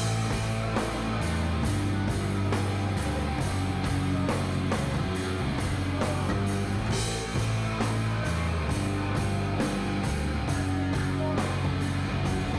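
Live rock band playing: electric guitar, bass and drum kit, with a steady cymbal beat over sustained low bass notes.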